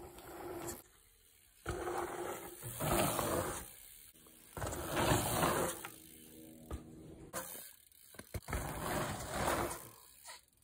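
Octane One Void dirt jump bike rolling and jumping on packed dirt: tyre noise in short passes with a few gaps between them. It has a steady buzz from the rear hub's freewheel as it coasts and a few sharp ticks near the end.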